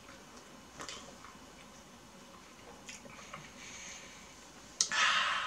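Close-up mouth sounds of someone eating pomelo pulp off the rind: a few wet clicks and smacks, then a sharp click and a louder, brief sucking slurp near the end.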